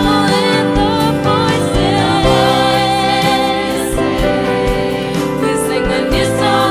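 Youth choir singing a gospel song in harmony, over accompaniment with a steady beat.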